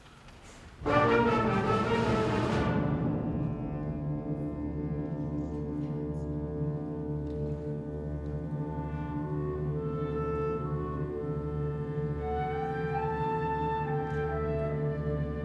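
A school instrumental ensemble begins a piece with a sudden loud full chord about a second in, a bright crash fading over the next two seconds. It then holds sustained chords, with a melody moving above them near the end.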